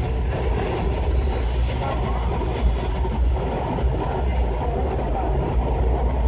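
Washington Metro Orange Line railcar running along the track, heard from inside the car as a steady low rumble with a faint hiss above it.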